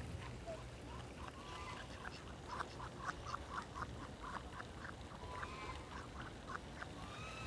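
Ducks calling softly: a quick run of short quacks, about three a second, with a few higher chirps around them.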